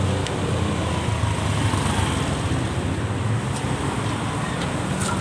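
Street traffic noise: a steady low rumble of passing road vehicles.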